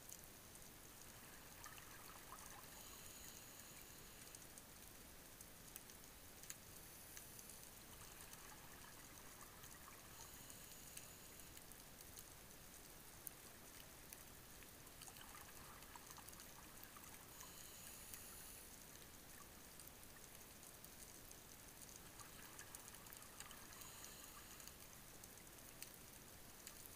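Faint underwater ambience picked up by a dive camera: a steady hiss with scattered faint clicks, and soft whooshes in pairs every several seconds from the diver breathing on a rebreather.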